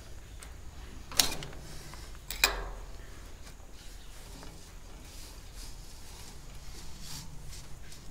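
Two sharp metal clinks, about one and two and a half seconds in, each ringing briefly, as a screwdriver pries at the outer seal cap on a Farmall 656's rear axle housing. A few faint clicks follow as the cap is worked loose and slid along the axle.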